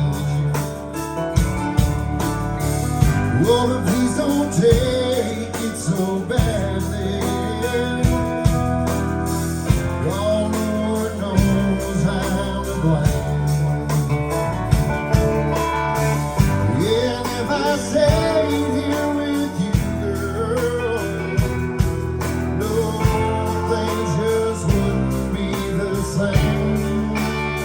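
Live band playing a country-rock song, with regular drum hits under a lead line that bends up and down in pitch.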